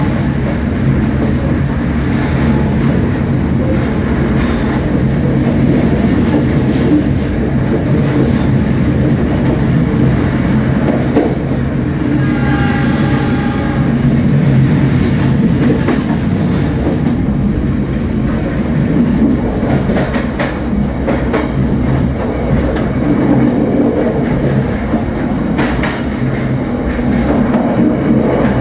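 Passenger train running on the rails with a steady rumble and clicks of the wheels over rail joints and points. A train horn sounds once for about two seconds near the middle.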